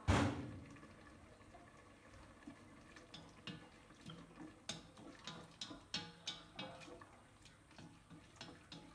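A sharp thump at the very start, then chopsticks knocking and scraping against the side of a metal pot as they stir the food in it, irregular clicks from about three seconds in.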